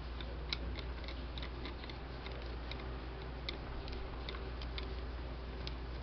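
Light, irregular clicks, about three or four a second, from fingers handling the partly reassembled motor of an electric fan, over a steady low hum.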